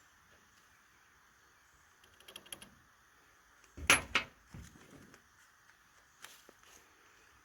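A few light metallic clicks, then two sharp knocks close together about four seconds in, followed by scattered lighter clicks: a black-powder revolver and its loading gear being handled and set down.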